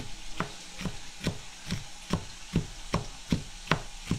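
Knife chopping a Vidalia onion on a cutting board: even strokes, about two and a half a second.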